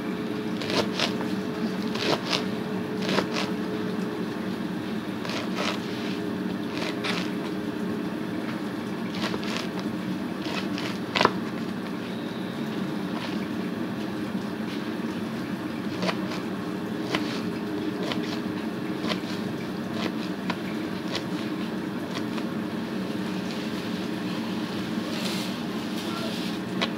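Sharp kitchen knife slicing through collard greens, each stroke ending in a short sharp tap, irregular and spaced a fraction of a second to several seconds apart, the loudest about eleven seconds in. A steady low hum runs underneath.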